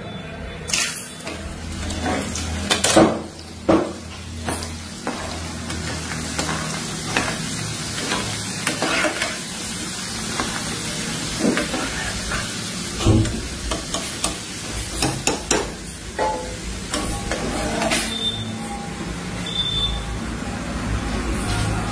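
Dried potato snack pellets (fryums) sizzling steadily as they puff up in hot oil in a small frying pan. A metal slotted spatula scrapes and clicks against the pan every so often as the pieces are stirred and lifted out.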